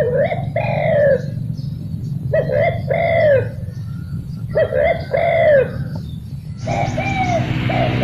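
Spotted dove coo phrases, played from a lure call set out to draw doves in: three phrases of two or three arching coos each, repeating about every two seconds. A little before the end, background music with a guitar comes in over them.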